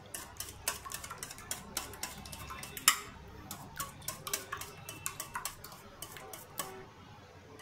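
Wire whisk beating raw eggs in a stainless steel bowl, its wires clicking against the metal several times a second, with one louder clack about three seconds in. The clicking thins out near the end.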